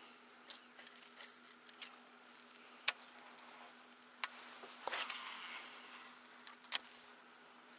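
Fishing tackle being handled during a cast with a baitcasting rod and reel: a cluster of light ticks, then three sharp clicks a couple of seconds apart, with a short hiss about five seconds in. A faint steady hum runs underneath.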